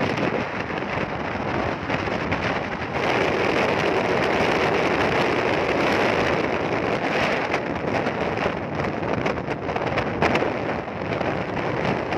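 Steady rush of wind and tyre noise from a car moving at highway speed, with wind buffeting the phone's microphone in uneven gusts.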